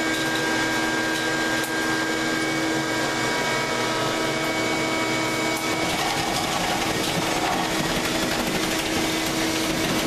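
High-power vacuum cleaner running steadily, pulling suction through a dryer vent duct. It is a constant hum with a few steady tones over a rushing hiss.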